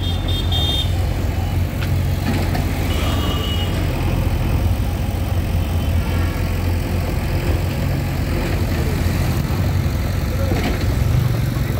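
Road traffic: motorbikes and cars running past with a steady low rumble, and a couple of short high beeps, one at the start and another about three seconds in.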